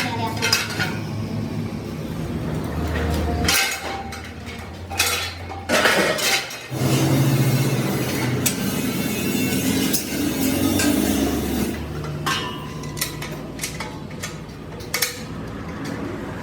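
Irregular metallic clinks and knocks of steel parts being handled and struck, over a steady low machine hum.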